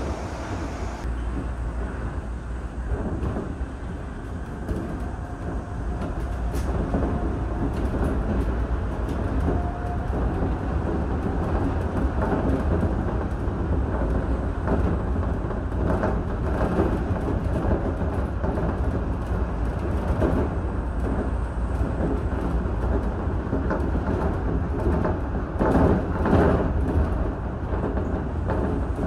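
Shonan Monorail's rubber-tyred suspended car running along its overhead track, heard from inside the car: a steady rumble with scattered rattles and clicks, briefly louder near the end.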